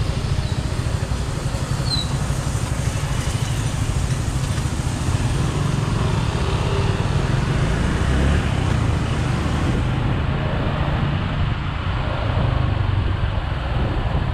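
Motorcycle engine running at low speed as the bike rides through city traffic, a steady low rumble.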